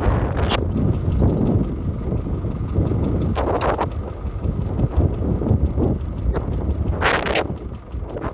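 McCormick International Harvester B275 tractor engine running, heavily buffeted by wind on the microphone, with brief louder gusts about half a second in, about three and a half seconds in and near the end.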